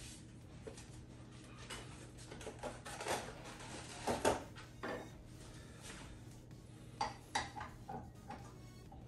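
Scattered clinks and knocks of kitchenware being handled at a stainless steel stand-mixer bowl, loudest about four seconds in and again near seven seconds.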